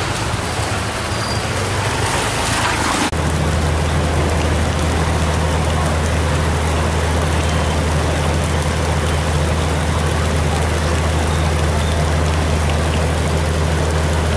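Heavy rain falling on a flooded street. About three seconds in, it cuts to a louder, steady rushing of water with a deep rumble underneath, floodwater running along the street.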